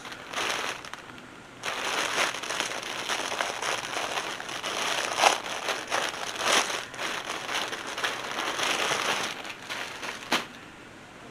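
Plastic packaging crinkling and rustling in irregular handfuls as a garment is unwrapped from its poly bag. There is a single sharp click near the end.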